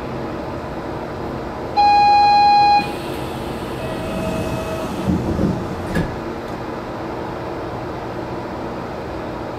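Steady hum inside a stationary Port Liner automated guideway train car, with a loud electronic beep lasting about a second roughly two seconds in. Fainter tones follow, then a few low thuds and a sharp click about six seconds in.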